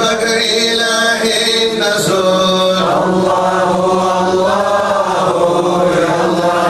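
Men's voices chanting a slow devotional Arabic melody, with long held notes that bend gently in pitch.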